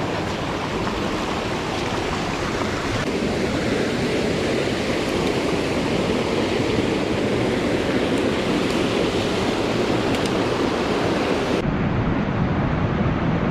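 Mountain stream water rushing over rocks: a steady, loud wash of noise.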